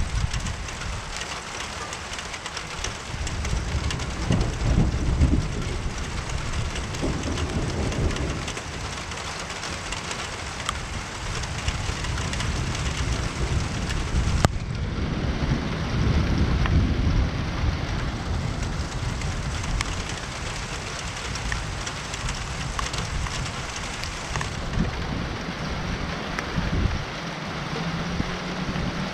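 Steady rain falling, with low rumbles of thunder swelling a few seconds in and again around the middle. A single sharp click comes just before the middle.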